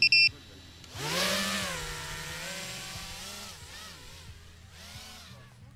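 A few high electronic beeps at the very start, then an FPV quadcopter's electric motors and propellers whine up about a second in. The whine wavers in pitch with throttle changes and fades slowly toward the end.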